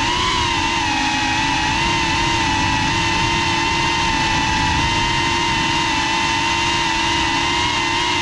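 FPV quadcopter's brushless motors and propellers whining at a nearly steady pitch, with wind and prop noise underneath. The pitch sags slightly near the end.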